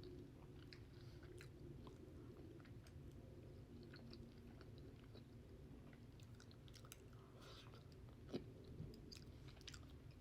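A person chewing food close to the microphone: faint mouth clicks and chewing over a low steady hum, with one sharper click about eight seconds in.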